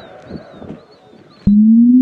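Electronic siren tone starting suddenly after a short lull, about one and a half seconds in: a single clear tone that rises steadily in pitch as the siren winds up.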